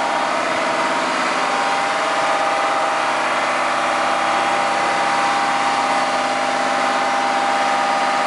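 An engine running steadily at constant speed, with a steady hum and whine over a broad hiss.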